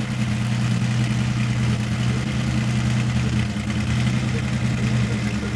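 Vintage racing car engine idling steadily, a low, even, pulsing note.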